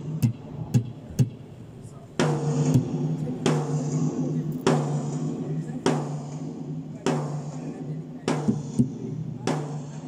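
Acoustic drum kit being played. A quick run of sharp hits comes in the first second or so, then from about two seconds in there is a heavy accented hit with a cymbal crash about every 1.2 s, each ringing out, over a steady low note.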